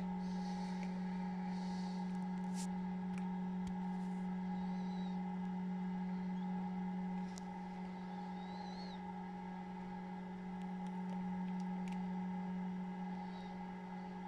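Steady hum of an incubator's fan motor, dropping a little in level about halfway through. Over it come a few faint, short, high peeps from newly hatched Chinese painted quail chicks and several sharp soft clicks.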